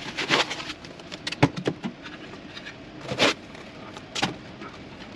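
Unpacking and handling noises: a metal-cased power inverter being pulled out of its white foam packing end caps and turned over by hand, giving a series of short scrapes and knocks, the loudest about three seconds in.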